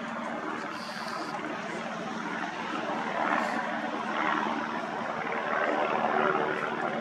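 Light propeller aircraft's piston engine running, a steady drone with a constant low hum.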